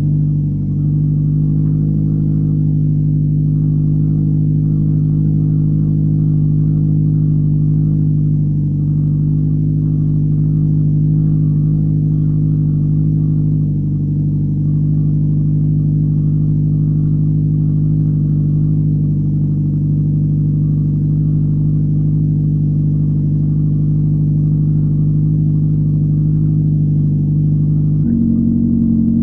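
Mazda 626's 1.8-litre four-cylinder petrol engine idling steadily while it warms up after a cold start in about −25 °C frost. Near the end the note steps abruptly slightly higher.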